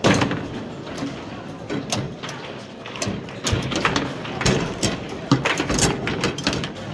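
Foosball table in play: an irregular run of sharp knocks as the ball is struck and trapped by the plastic figures, with the steel rods sliding and rattling.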